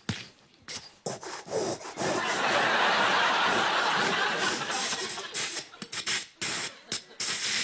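Improvised mouth-made sound effects into a microphone: short noisy bursts, then a long loud hiss of about three seconds that breaks back into bursts, with some audience laughter.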